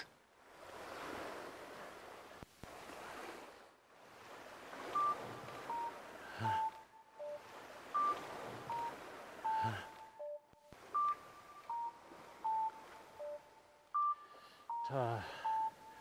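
Background music: a repeating melody of short, clear beep-like tones, about one note every 0.7 s, with a few low thumps and a sweeping effect near the end, over sea waves washing on rocks in the first few seconds.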